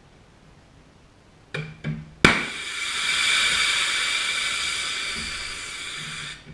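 High-pressure air bursting from a thin, flexible feed line on an HPA bottle: two clicks, then a sharp bang as the line gives way, followed by a loud hiss of escaping air for about four seconds that stops abruptly. The thin line cannot hold the bottle's pressure, so the bottle vents to the atmosphere.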